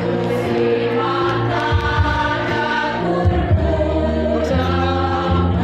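Women's choir singing a hymn in held, sustained notes that change pitch about every second, with steady low notes underneath.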